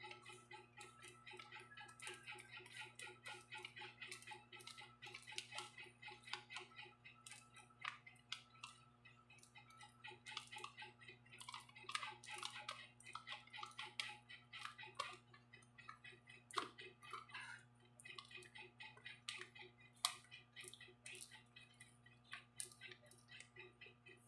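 Faint, quick, irregular clicks and scrapes of small hand tools at work, over a steady low hum.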